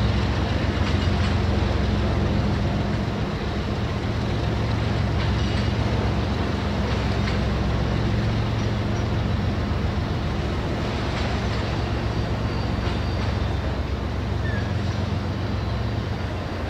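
Two freight trains of autorack cars rolling past on adjacent tracks: a steady rumble of steel wheels on rail, with scattered clicks and a few brief, faint high squeals.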